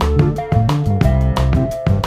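Background music with a steady beat, guitar and drums.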